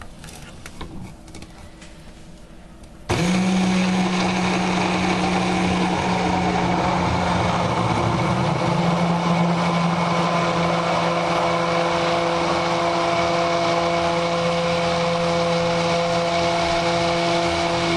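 Immersion blender switched on about three seconds in, then running steadily with a constant motor hum as it blends tomato sauce, oil, sugar and vinegar into dressing in a beaker. Faint handling clicks come before it starts.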